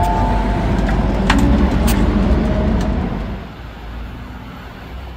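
City traffic noise: a steady low rumble of road vehicles with a few sharp clicks, dying away over the last two seconds.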